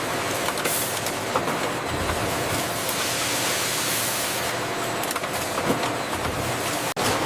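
Steady factory machinery noise: a dense hiss with scattered clicks, cutting out for an instant near the end.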